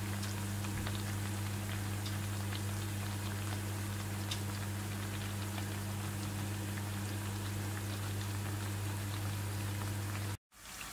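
Plantain slices frying in hot oil in a pan: a steady crackling sizzle with a constant low hum under it. The sound cuts off suddenly near the end.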